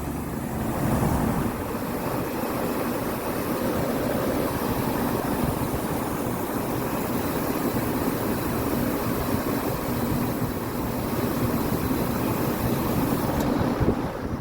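2013 Bryant air conditioner running with a steady hum under an even rush of noise.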